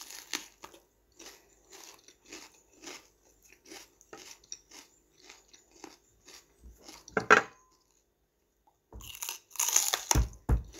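Raw bitter gourd (ampalaya) crunching as it is bitten and chewed, two or three crisp crunches a second. A single louder crunch comes about seven seconds in, then a short pause, then a fresh bite brings loud crunching again near the end.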